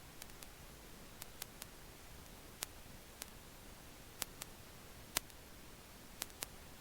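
Faint hiss with about a dozen sharp, small clicks at irregular intervals.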